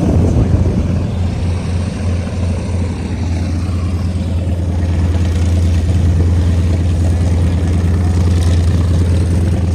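Piston engine of a propeller-driven warbird running steadily, a loud low drone that grows a little louder in the second half.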